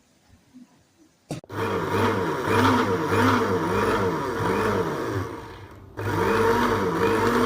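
Countertop blender's motor switched on with a click about a second and a half in, running loud with a wavering pitch. It fades and cuts out briefly a second before the end, then starts again.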